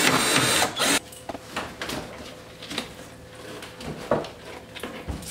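Cordless drill-driver running for about a second, tightening a door hinge screw that had worked loose. After it come a few light knocks and some clatter.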